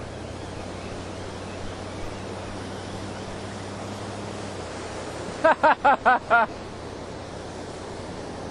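Ocean surf washing onto the beach, with wind on the microphone. About five and a half seconds in comes a quick run of five short, loud pitched calls.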